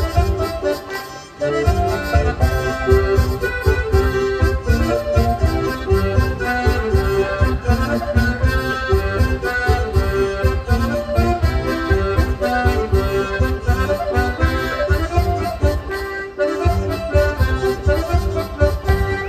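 A traditional folk dance tune played live, sustained melody notes over a strong steady beat. It breaks off briefly about a second in and again about three seconds before the end.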